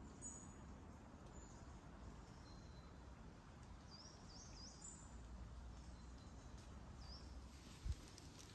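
Faint woodland ambience: a small bird giving short, thin, high calls now and then, with a quick run of three rising notes about four seconds in, over a faint steady background noise. A single short thump near the end.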